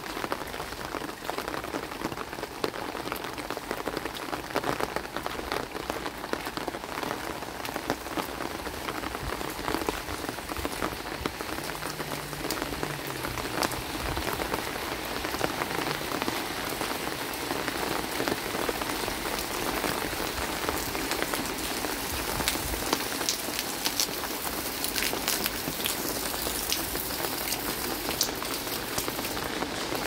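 Steady rain falling on a concrete lane covered in a thin sheet of water, a dense hiss of countless drops splashing on the wet surface.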